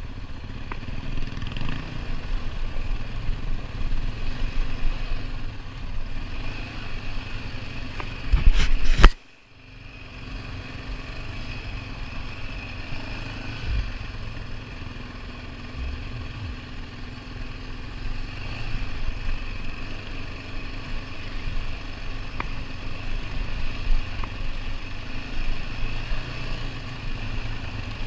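ATV engine running while riding a dirt trail. About eight and a half seconds in, a loud jolt briefly swamps everything and cuts off suddenly, after which the engine sound returns.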